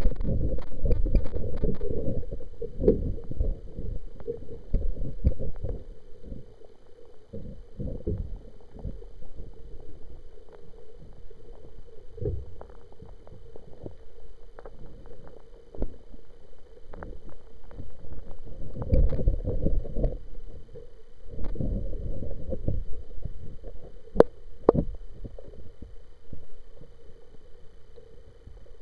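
Muffled underwater rumbling with irregular knocks and bumps, like a camera in a waterproof housing being moved and handled in the water, over a faint steady hum. The rumble swells at the start and again about two-thirds of the way through.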